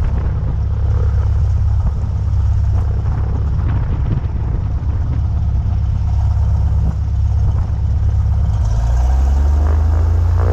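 Cessna 172 XP floatplane's engine and propeller running at takeoff power during the water run, heard from outside the cabin with water rushing off the floats and wind buffeting the microphone. The low rumble turns steadier near the end.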